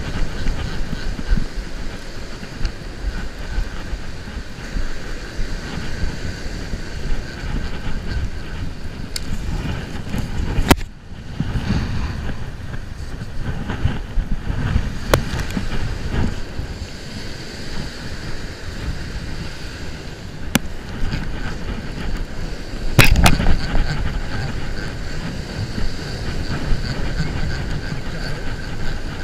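Wind buffeting the microphone over breaking surf, with a few sharp knocks, the loudest about three quarters of the way through.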